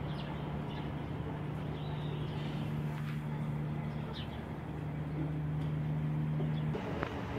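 A steady low motor hum that cuts off suddenly near the end, with a few faint bird chirps above it.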